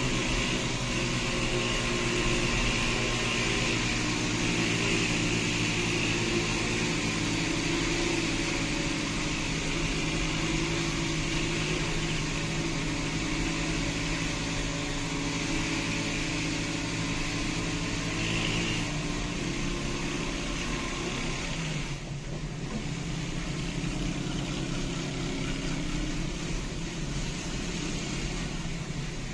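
Steady engine drone with tyre and road noise, heard from inside the cabin of a car being towed down a highway. The engine note shifts to a different pitch about two-thirds of the way through.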